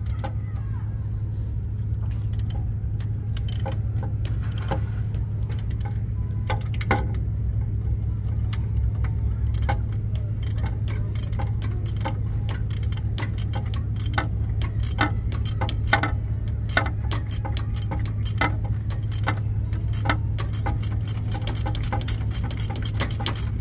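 Socket ratchet clicking in short irregular runs as it backs out the belt tensioner's mounting bolt, sparse at first and much busier from about ten seconds in. A steady low hum runs underneath.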